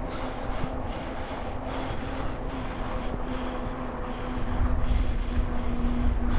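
Radio-controlled car running steadily along a trail: a constant electric-motor whine over rough tyre and wind noise. The low rumble grows louder about four and a half seconds in.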